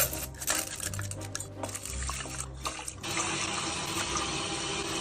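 Water running from a kitchen tap, with clatter of things being handled over the first few seconds; the flow becomes a steady, full stream from about three seconds in.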